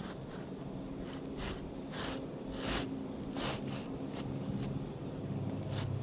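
Several short scrapes of an asphalt roofing shingle being handled and worked into place on the roof, over a low steady hum.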